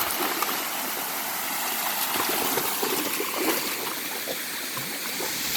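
Stream water running and gurgling over rocks, a steady wash of noise, with small irregular splashes through the middle.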